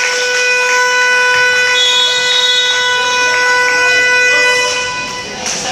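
Basketball game-clock horn sounding one steady, loud buzz for about five seconds, signalling the end of the first quarter.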